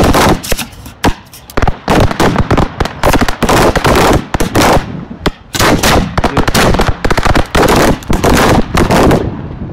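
Fireworks launched at close range from ground mortar racks: a rapid barrage of loud, overlapping bangs, several a second, with a couple of brief lulls.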